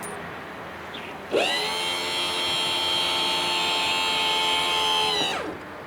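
Electric starter of a 40 hp Johnson outboard cranking for about four seconds: a steady whine that spins up about a second and a half in and winds down near the end. The engine does not catch, since it has not yet been primed.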